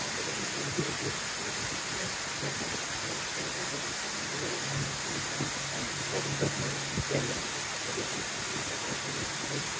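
Shuttle boat under way on a lake: a steady rushing hiss of water and wind, over a low motor hum that fades in and out.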